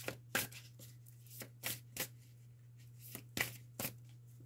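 A deck of tarot cards being shuffled by hand: a run of short, uneven snaps and flicks of card stock.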